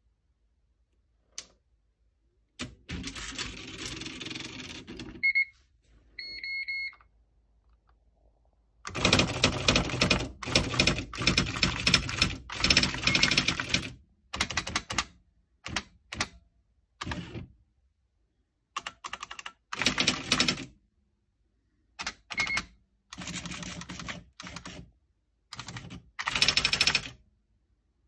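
IBM Wheelwriter 1000 electric daisywheel typewriter printing: rapid rattling strikes in start-stop bursts as characters are typed. Its short electronic beeps sound twice around the fifth to seventh second and once more past the twentieth.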